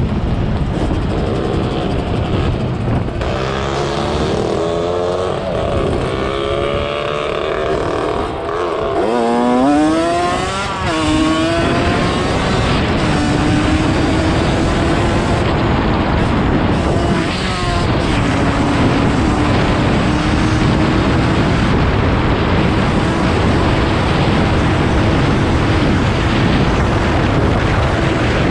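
Motorcycle engine running on the move, with wind rush on the microphone: the revs rise and fall several times over the first ten seconds or so, then hold at a nearly steady pitch.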